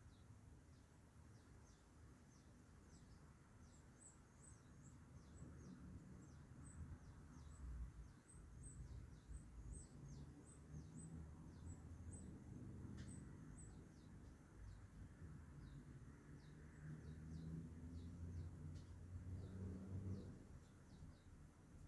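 Canaries chirping faintly: a long run of short, high chirps that each drop quickly in pitch, several a second, over a low rumble that grows louder in the second half.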